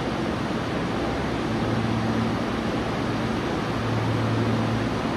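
Steady hum and rush of an underground subway station with a stopped 3000S train idling at the platform. A low hum grows louder and fades a couple of times.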